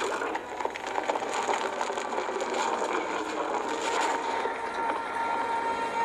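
Movie sound effect of an ancient trap mechanism set off when a floor stone is stepped on: a dense, ratcheting clatter and grind of stone and gears. A steady high tone comes in under it about halfway through.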